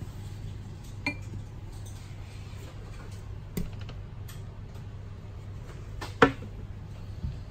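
Steady low rumble inside an ICR passenger coach, with a few sharp clicks and knocks from the fold-down seat-back table and seat fittings being handled; the loudest knock comes about six seconds in.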